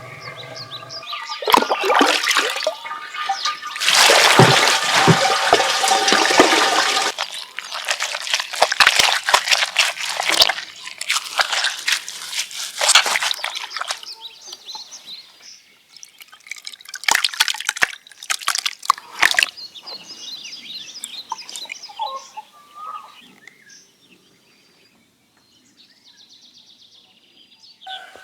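Water splashing and sloshing in several loud bursts, with sharp knocks among them, then quieter scattered drips and small sounds.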